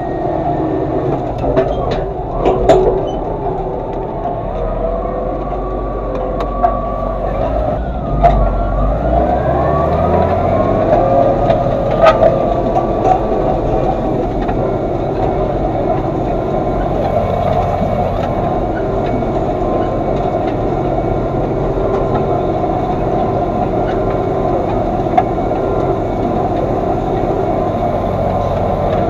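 Massey Ferguson 3115 tractor's diesel engine running steadily at working revs during field tillage, rising in pitch about ten seconds in, with a few sharp clunks from the machinery.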